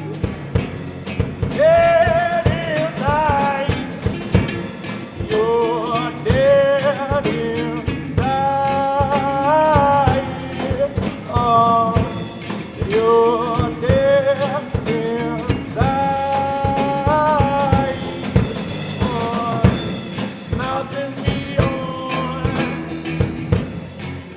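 Rock band playing: a drum kit keeps a busy beat while a lead melody rises and falls in held notes over it.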